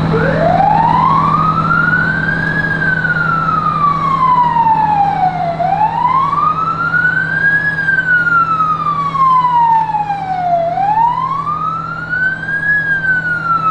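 Electronic siren of a miniature fire engine sounding a slow wail. It rises in pitch for about two and a half seconds, then falls for about three, and rises three times in all. A steady low hum runs underneath.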